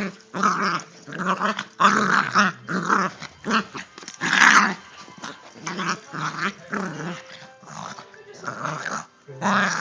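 Dog growling in play-fighting: a string of short, gravelly growls and snarls, one every half second or so, loudest about four and a half seconds in.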